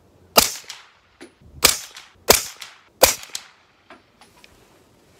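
Four suppressed 9mm shots from a Foxtrot Mike 10.5-inch AR-15 upper firing Federal 147-grain ammunition through a suppressor, each a sharp crack with a short echo. The shots come irregularly, under a second and a half apart, over about three seconds.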